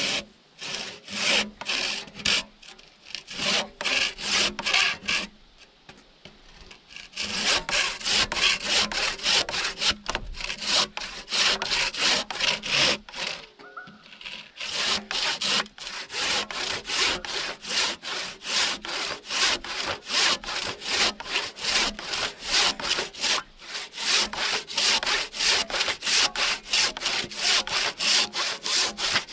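Handsaw cutting through a wooden log in quick, steady back-and-forth strokes, stopping briefly a few times.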